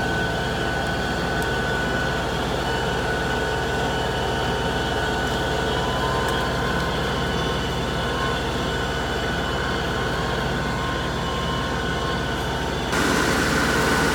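LS XR3135 tractor's diesel engine running at a steady speed. About 13 seconds in, the sound steps up suddenly, louder and hissier.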